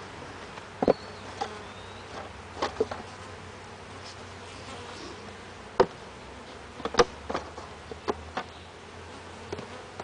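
Honeybees buzzing steadily around an open hive, broken by several sharp wooden knocks as hive frames are set into a box.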